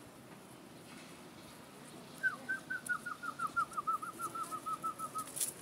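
A bird calling: a fast run of short notes, about five or six a second, the series falling slightly in pitch. It starts about two seconds in and lasts about three seconds.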